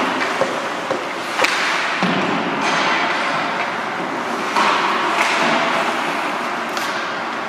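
Ice hockey play in an indoor rink: a continuous wash of skating and arena noise broken by sharp knocks and thuds of sticks and puck, the loudest about one and a half seconds in.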